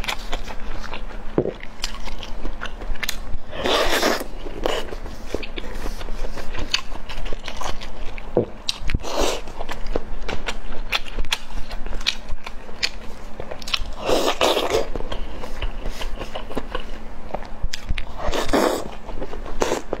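A person chewing and biting oden (fish balls and the like) close to a clip-on microphone: steady wet mouth clicks, with four louder mouthfuls about five seconds apart.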